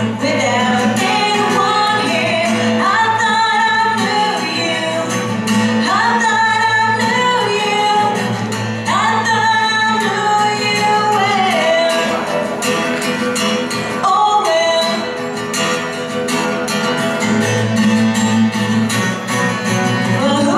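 A young woman singing a song while playing an acoustic guitar, her voice holding and sliding between notes over the guitar's steady chords.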